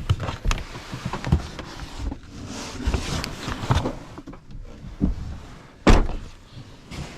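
Irregular knocks, clatter and rustling of things being handled, with one loud thump about six seconds in.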